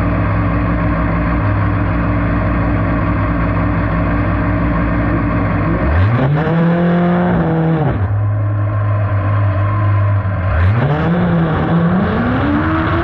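A kart cross buggy's engine, heard from inside the cockpit, idling steadily, then revved sharply about six seconds in and held for two seconds before falling back to idle. Near the end it revs up again and keeps climbing as the kart accelerates away.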